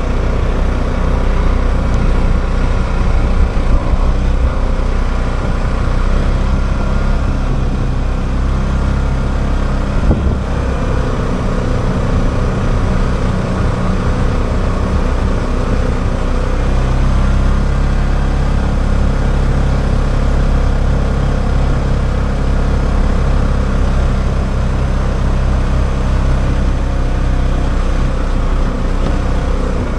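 Polaris 570 off-road vehicle's engine running steadily under way on a trail, its pitch shifting only a little, over a constant rush of riding noise.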